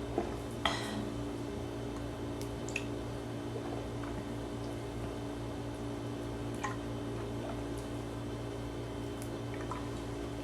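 A steady low hum with a few small sharp clicks or taps over it, the clearest two within the first second.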